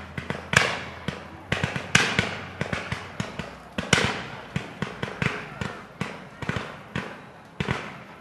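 Fireworks display: aerial shells bursting in a rapid, irregular series of sharp bangs, several a second, each trailing off in an echo. The loudest reports come about half a second, two seconds and four seconds in.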